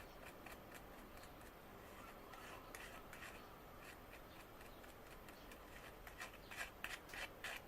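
Faint scraping and rubbing of a small tool mixing two-part filler with its hardener on a piece of cardboard, the strokes coming quicker and louder near the end.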